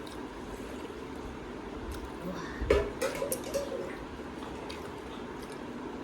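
Eating sounds: momos being chewed, with a few light clicks of cutlery or plate about halfway through and a brief vocal sound near the middle.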